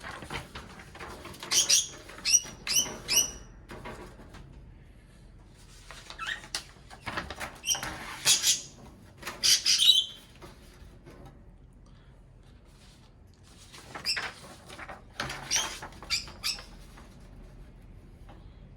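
Pet budgerigars chirping and squeaking in short bursts, with rustling of sheets of paper being laid in the cage tray.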